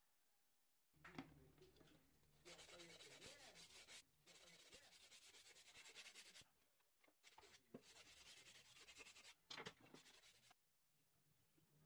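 Thin wooden strips being slid and rubbed against one another and the board as they are handled, a dry scraping in several stretches of a second or two with short pauses between.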